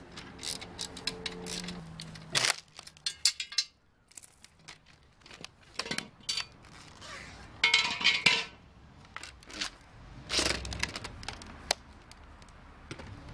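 Background music ends about two seconds in. After that come irregular metallic clinks, clicks and knocks as the cells and steel end plate of a Nissan Leaf battery module stack are handled and pried apart, with a short scraping rasp about eight seconds in.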